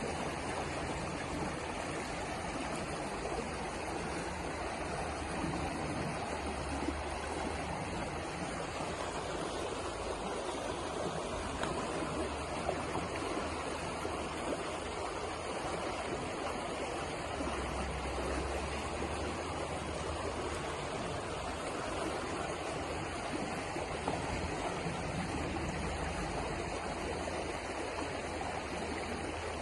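River water flowing over rocks, a steady rushing and gurgling with no breaks.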